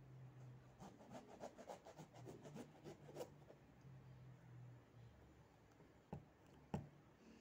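Faint scraping of a kitchen knife cutting and peeling the rind of a giant granadilla (big passion fruit): a quick run of small scrapes over the first few seconds, then two sharper clicks near the end.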